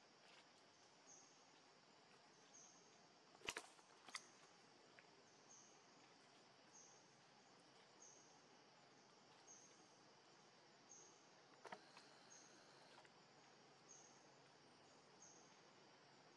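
Faint outdoor forest ambience: a short high chirp repeats evenly about every one and a half seconds, with a few sharp clicks, the loudest a pair about three and a half seconds in and another near twelve seconds.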